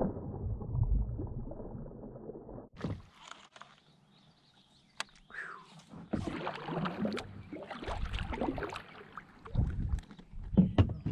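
A flier sunfish strikes a floating jerkbait at the surface with a sudden splash. Water sloshing and a few sharp knocks on the kayak follow as the fish is played and brought to the boat.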